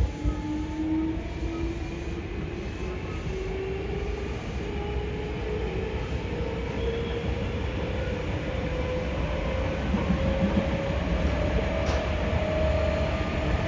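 Hankyu 5300-series train, resistance-controlled, heard inside the car while it accelerates. The traction motor whine rises steadily in pitch over a low rumble of running gear on the rails.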